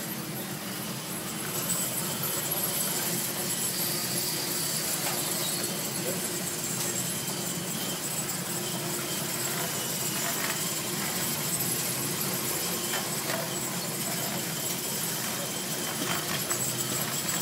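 Semi-automatic electric crepe-making machine running: a steady mechanical hum and hiss from its motor-driven plates and folding conveyor, with a few faint clicks.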